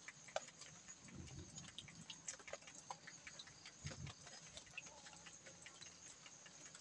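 Near silence with many faint, scattered small clicks and ticks over a steady faint high hiss, and two brief low murmurs about a second in and about four seconds in.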